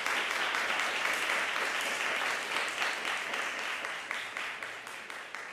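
Audience applauding, the clapping growing fainter over the last two seconds.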